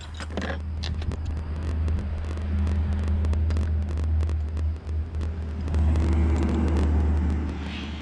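A steady low rumble runs under scattered light clicks and taps of a hand tool working at a truck's battery terminal, with a brief dip in the rumble about five seconds in.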